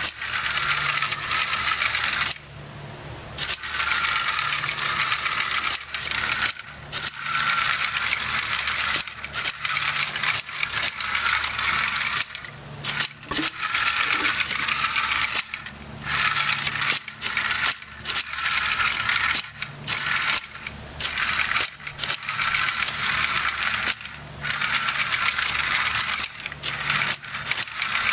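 Robotic frilled-neck lizard kit walking: its small gear motor whirring with a steady hum and whine while the plastic gears and legs rattle and clatter on concrete, cutting out in brief pauses every second or two.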